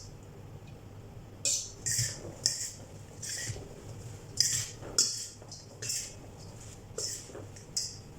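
A fork tossing a dressed leafy salad in a bowl: about ten short scraping, clinking strokes, roughly one every half second, with pauses between them.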